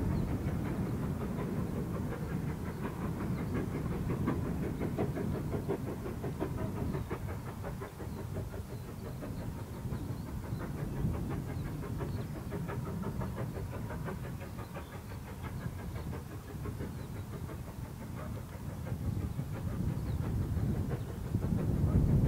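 GWR Small Prairie 2-6-2 tank steam locomotive No. 4555 working a train, heard across open fields as a continuous rapid run of exhaust beats and wheel clatter. The sound grows louder near the end.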